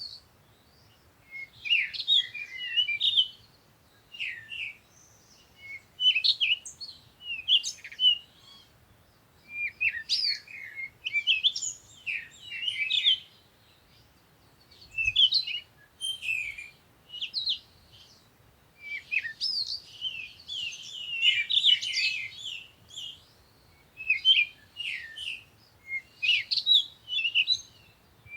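Songbirds chirping and twittering in short bursts every second or two, with brief quiet gaps between phrases.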